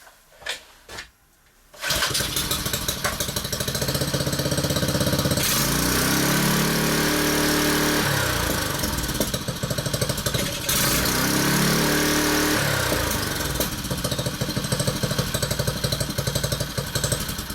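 Honda four-stroke engine of a plate compactor, running with its centrifugal clutch removed. It starts about two seconds in, idles, is revved up twice and falls back to idle each time. With the clutch off, the tinkling that the loose clutch made at idle is missing.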